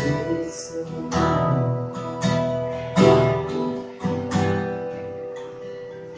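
Acoustic guitar strummed chords, about one stroke a second, with no voice. After the last strum, about four seconds in, the chord rings on and fades.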